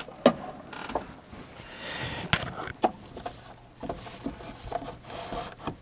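Scattered light knocks and clicks with some scraping, from an aluminium iMac stand being handled and pushed against a swivel base that it does not fit into.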